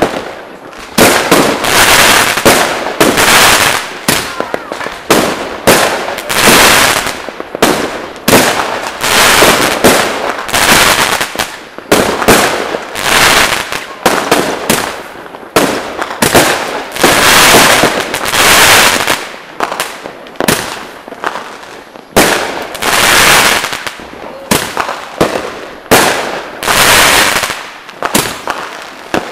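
Fireworks going off in a continuous barrage: loud bangs one after another, about one a second, each trailing off into crackling, with hardly a break.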